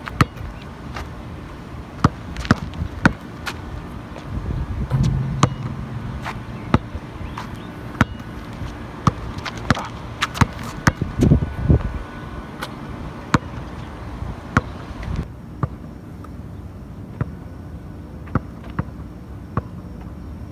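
Basketball bouncing on an outdoor asphalt court as it is dribbled and shot: irregular sharp thuds, a few of them louder, over a steady low background noise.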